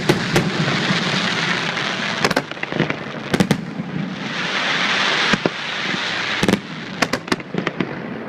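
Aerial fireworks display: sharp bangs of shells bursting, some single and some in quick clusters, with a rapid run of bangs near the end, over a continuous rushing noise that swells between them.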